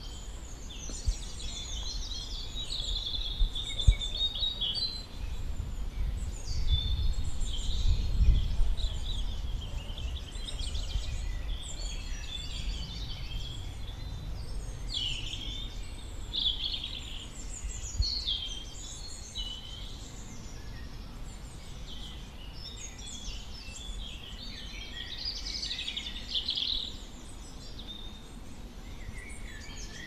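Woodland birdsong: several small songbirds chirping and trilling in quick, short phrases, over a low rumble that swells about six to nine seconds in, with a couple of sharp clicks.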